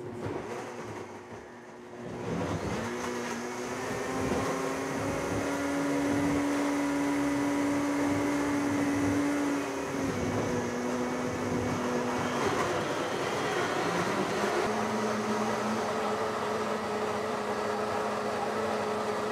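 Two Blendtec blenders, a Designer Series and a Classic Series, running at high speed and liquefying whole greens and fruit into juice. The motors spin up with a rising whine about two seconds in, then run steadily, their pitch shifting a few times partway through.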